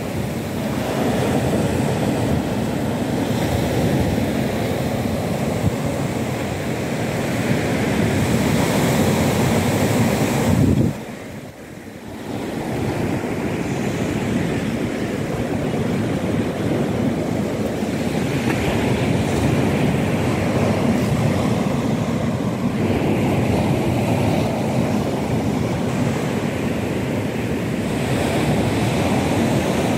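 Small sea waves breaking and washing up the beach below, a steady surf, mixed with wind on the microphone. The sound drops away sharply for about a second around eleven seconds in, then returns.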